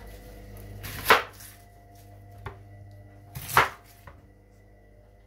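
Two sharp knocks of a kitchen knife striking a wooden chopping board, about two and a half seconds apart, with a couple of faint taps between and after them.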